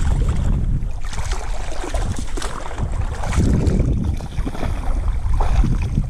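Wind buffeting the microphone with a steady low rumble, over irregular splashing and slapping of choppy sea water against a kayak's hull.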